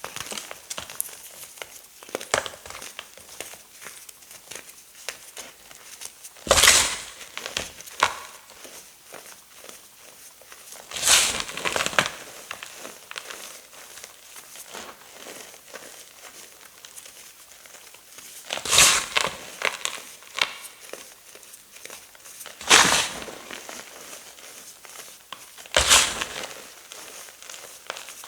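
Tough gym chalk with silver glitter being crushed: about five loud, crisp crunches spread through, with fine crumbly crackling in between.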